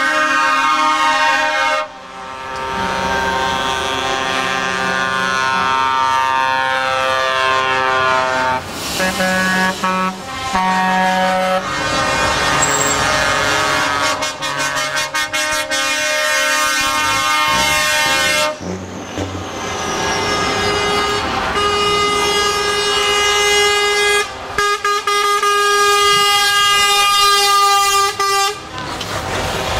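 Semi-truck tractors in a convoy sounding their air horns in long held blasts, one after another, with short breaks and changing pitches between blasts, over the trucks driving past.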